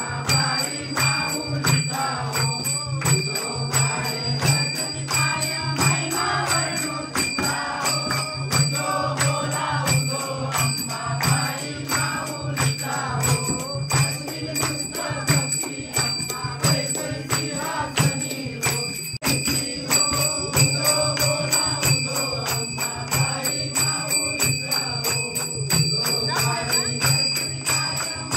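Devotional song with singing over fast, steady jingling percussion.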